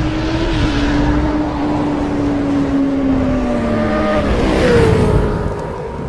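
Motorbike engine sound effect in an animated intro: a sustained engine note that slowly sinks in pitch, then shifts to a higher note about four and a half seconds in.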